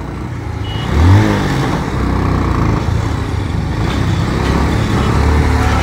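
Motorcycle engine heard from the rider's seat, picking up speed with a rise in pitch about a second in, then running steadily under road noise.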